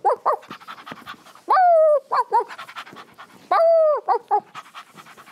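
A woman imitating a dog with her voice: quick, steady panting, broken twice by a held, slightly falling bark, each followed by two short yips.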